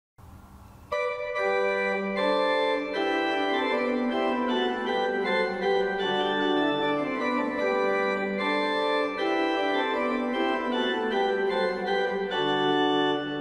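Pipe organ playing a canzona, several sustained voices moving at once in counterpoint. The music begins about a second in, after a moment of faint hiss.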